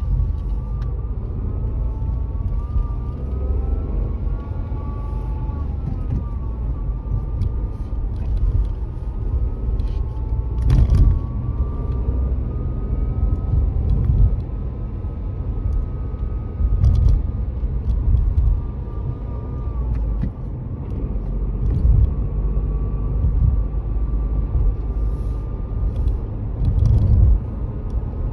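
Dacia Duster ECO-G 100's engine running, with a steady low rumble and a thin whine that slowly rises and falls in pitch, plus a few sharp knocks around the middle and near the end. Somewhere in this is the odd, unexplained noise the owner is asking about.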